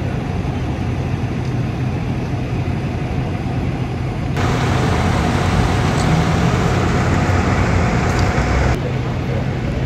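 Fire apparatus engines running at the scene, a steady low rumble. About four seconds in a louder hiss with a faint steady whine comes in abruptly and stops just as abruptly near the end.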